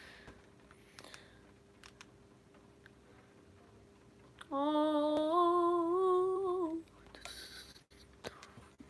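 A girl humming one held, slightly wavering note for about two seconds, about halfway through. Faint clicks and rustling of handling before and after.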